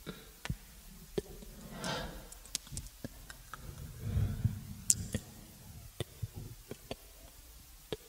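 Irregular sharp clicks and taps, about a dozen of them, the loudest about five seconds in. A soft rushing swell comes about two seconds in and a low rumble around four seconds.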